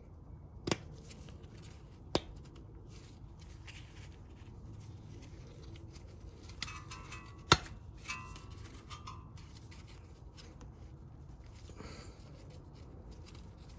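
Gloved hands pressing small rubber dust caps onto a brake caliper's guide-pin bolts: quiet rubbing and handling with a few sharp clicks, the loudest about seven and a half seconds in.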